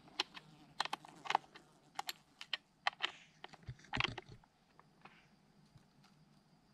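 A run of irregular light clicks and taps, with the loudest near the start and about four seconds in, dying away after about four and a half seconds.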